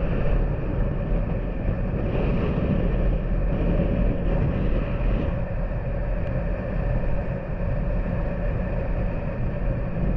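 Motorcycle engine running steadily while riding at road speed.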